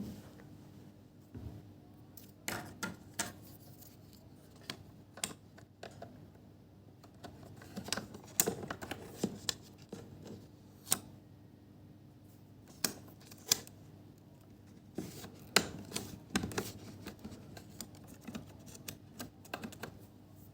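Irregular clicks, taps and scrapes of small hard plastic and metal parts being handled, in short clusters over a faint steady hum.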